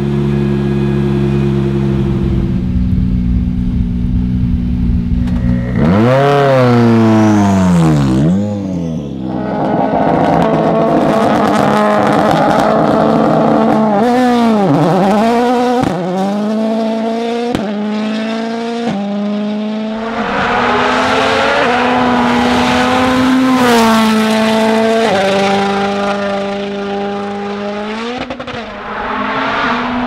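M-Sport Ford Fiesta WRC rally car's 1.6-litre turbocharged four-cylinder engine. It runs steadily at first, then revs up and sweeps past with a falling pitch about seven seconds in. After that it accelerates hard on a gravel road, climbing through the gears, with each upshift heard as a sudden drop in pitch.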